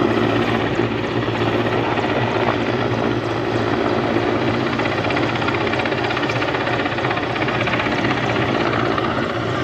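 Grey military transport helicopter flying low overhead: steady, loud rotor and turbine engine noise.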